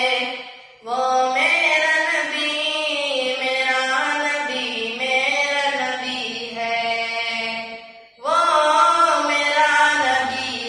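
A boy's solo voice singing a naat, an Urdu devotional poem in praise of the Prophet, unaccompanied, with long held and ornamented notes. He breaks off for a breath shortly after the start and again about eight seconds in.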